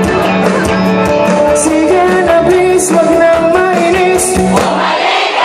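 A live rock band plays a slow song with a lead singer, with held notes, a steady bass and a cymbal hit about every second and a half. About four and a half seconds in, the bass and drums drop out and the crowd's voices rise.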